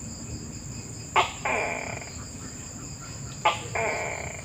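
Tokay gecko calling "to-kek" twice, about two seconds apart, from a recording played back on a phone. Each call is a sharp short note followed at once by a longer second note.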